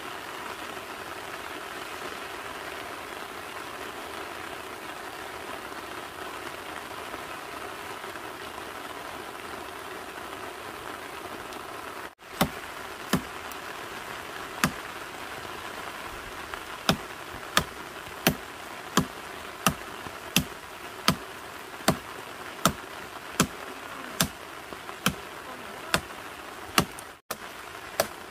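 Steady outdoor hiss, then, after about twelve seconds, sharp chops of a blade cutting into a tree branch. A few come spaced out at first, then they turn regular at about one every three-quarters of a second.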